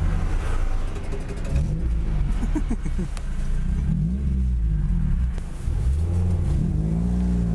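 Car engine running hard, its pitch rising and falling several times as it accelerates and shifts through the gears.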